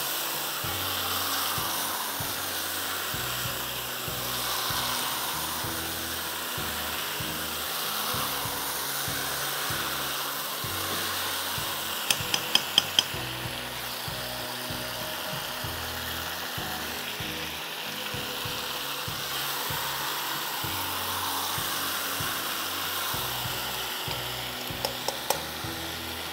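Marinated whole chicken sizzling steadily as it fries in oil in a karahi, with a quick run of four metal clicks about halfway through and a few more near the end, as the fork knocks on the pan.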